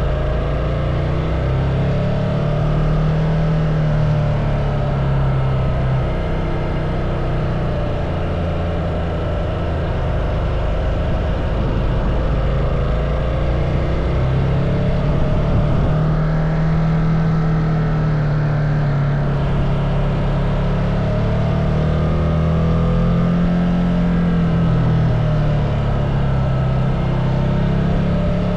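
Ducati Multistrada motorcycle engine running under way, its pitch rising and falling again and again as the throttle is opened and closed.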